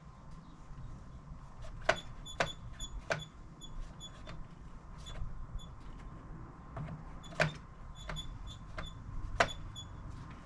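Irregular clicks and knocks of metal and plastic parts being handled and fitted back together as the freshly greased head of a string trimmer is put back on, several of them sharp metallic clinks that ring briefly.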